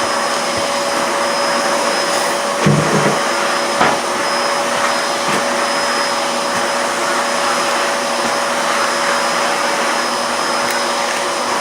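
Steady whir of an electric motor pushing air, a constant rushing noise with a faint held tone in it, unchanged throughout.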